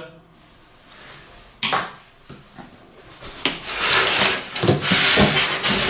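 A small plastic part set down with a single sharp clack, then the Evolution F255SMS mitre saw body dragged up out of its moulded polystyrene packing, giving a couple of seconds of loud rubbing, scraping and knocking of plastic against foam.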